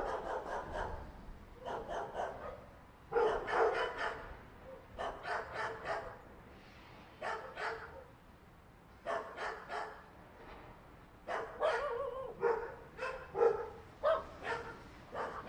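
Several dogs fighting: clusters of rapid barks and yelps come in short bouts of about a second each, separated by brief pauses.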